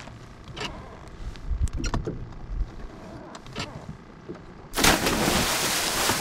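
Scattered light knocks and clicks on a small fishing boat, then about five seconds in a sudden, loud, steady rush of wind buffeting the microphone.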